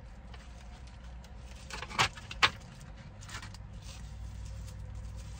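Small earbud box and plastic charging case being handled and unpacked: light rustling with two sharp clicks about two seconds in, half a second apart, over a low steady hum.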